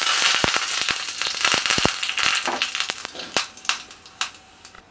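Curry leaves and dried red chillies spluttering in hot coconut oil with popping mustard seeds: a loud sizzle full of sharp pops and crackles that dies down over a few seconds, the pops thinning out toward the end.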